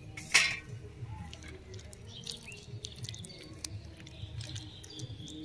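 Small sticky clicks and light knocks as tamarind pickle is handled in a glass bowl, with one short, louder rustle about a third of a second in, over a faint low rumble.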